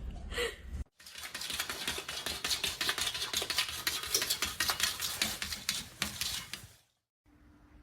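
A dense, rapid run of small clicks and scrapes, like something hard being stirred, rattled or scratched, lasting about six seconds between two abrupt cuts.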